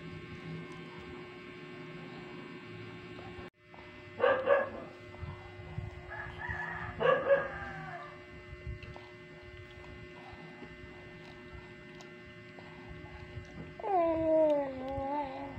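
A dog calling a few times: short yelps about four and seven seconds in, and a longer whine that falls in pitch near the end, over a faint steady hum.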